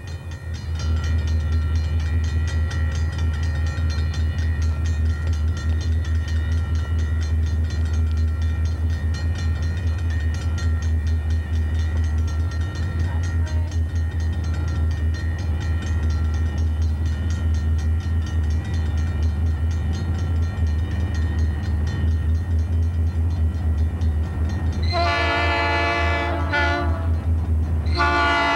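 Grade-crossing bell ringing steadily over a low, steady rumble. Near the end the lead diesel locomotive of a Southern Pacific freight, an EMD unit, sounds its air horn in loud blasts as it reaches the crossing.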